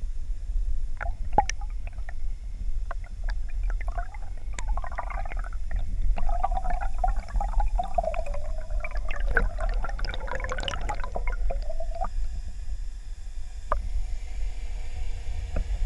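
Water sounds picked up by a camera underwater: a steady low rumble of water moving past it, with gurgling and bubbling crackle from about four to twelve seconds in, and scattered sharp clicks.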